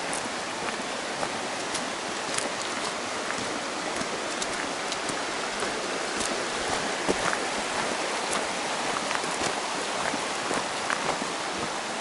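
Steady water noise, a continuous even hiss, with scattered small sharp ticks throughout.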